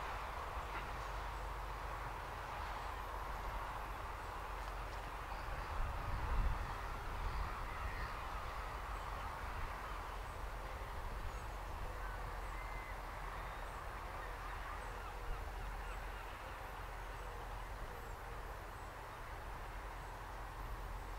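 Distant Class 35 Hymek diesel-hydraulic locomotive's Maybach V16 engine running steadily as it pulls slowly away, with a low swell a few seconds in and a few bird calls over the top.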